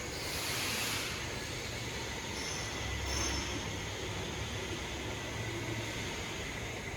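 Portable line boring and bore welding machine at work: a steady mechanical running noise, with a hissing surge in the first second and a thin high squeal that comes and goes.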